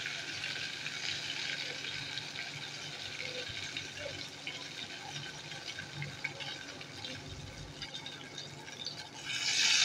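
Ghevar batter frying in a deep pot of hot oil: a steady sizzling hiss with fine crackles, turning suddenly louder near the end.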